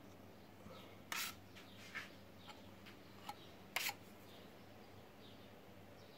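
A steel blade handled against a cast plaster moulding: a short scrape about a second in, a couple of light clicks, and a sharper click near four seconds in.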